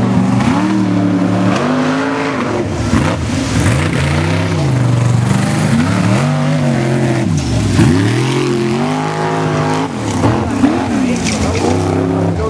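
Formula offroad car's engine revved hard, its pitch swinging up and down over and over, the swings coming quicker in the last few seconds.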